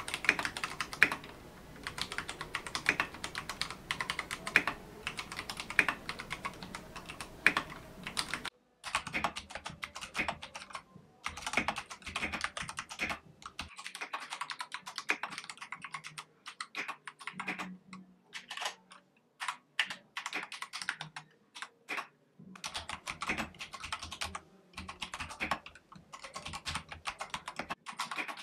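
Akko 3087 TKL mechanical keyboard being typed on slowly: uneven keystroke clacks in short runs with brief pauses between them.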